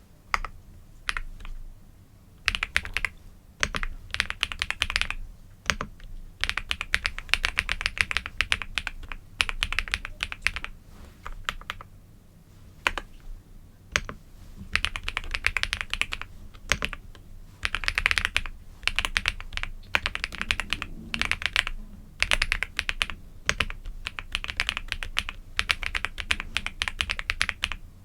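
Typing on a computer keyboard: runs of rapid key clicks lasting a second or two, broken by short pauses and the odd single keystroke.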